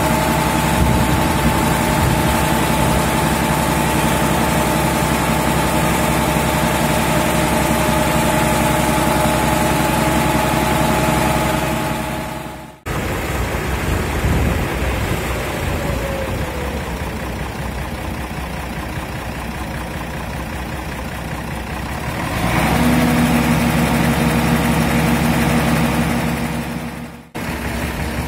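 A mobile crane's engine runs steadily, lifting and lowering a sailing yacht on slings. The engine note steps in level and pitch between takes and falls briefly in pitch in the quieter middle part. The sound cuts out abruptly about 13 s in and again near the end.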